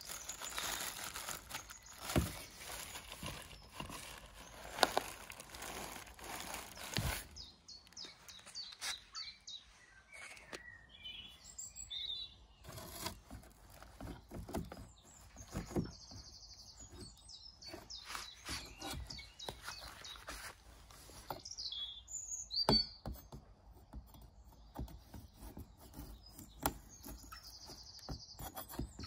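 Black plastic bin bag crinkling and rustling as hands handle it inside a cardboard box for the first several seconds, then scattered knocks and scrapes of cardboard and a serrated knife against the box. Birds chirp in the background.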